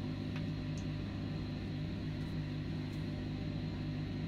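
Steady low mechanical hum with a faint high whine, unchanging, and a faint tick about half a second in.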